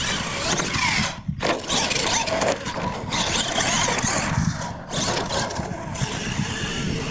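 Radio-controlled monster truck driving across a dirt track, its motor running and its tyres on the dirt, broken by two short sudden gaps, about a second in and near five seconds.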